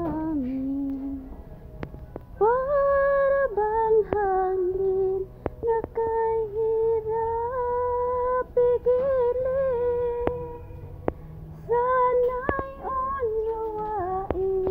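A woman singing a slow melody unaccompanied, in long held, sliding notes with no clear words, with a few sharp clicks.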